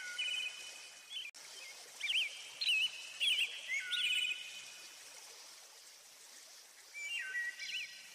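Songbirds singing in a nature-sound background track: short warbling chirps and held whistled notes over a steady hiss, pausing for a couple of seconds past the middle. A split-second dropout about a second in.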